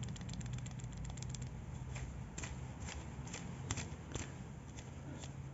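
Worn aftermarket Triali alternator belt tensioner pulley rocked and turned by hand, giving irregular light clicks and knocks: its bearing has a huge amount of play and has failed.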